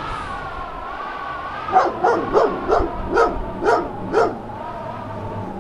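A dog barking, seven quick barks starting a couple of seconds in, over a steady wavering drone.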